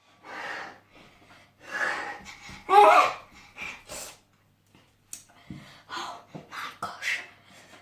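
A person gasping, breathing hard and laughing in bursts, reacting to the burn of a very hot chilli sauce just tasted. A few faint clicks follow in the second half.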